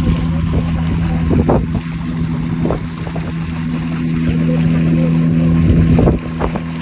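Motorboat engine running steadily at an even speed, with a few dull thuds from the hull meeting the water, about a second and a half in, near the middle, and twice near the end.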